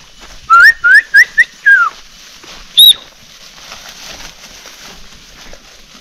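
A herder's whistling to drive sheep and goats: four quick rising whistles about half a second in, a falling one right after, then a single short, high whistle about three seconds in.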